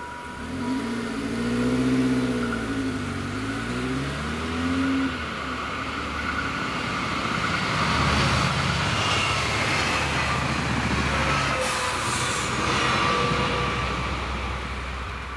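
Small hatchback's engine pulling away and accelerating, its note rising and falling through gear changes over the first few seconds. Then another car's tyres and engine rush past close by, and a train's noise joins in towards the end.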